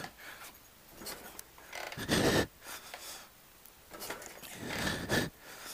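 A custom Harley-Davidson chopper's V-twin being kick-started by hand, cranked over twice by the kick lever with a short noisy rush each time, without firing: the engine is stone cold and does not catch.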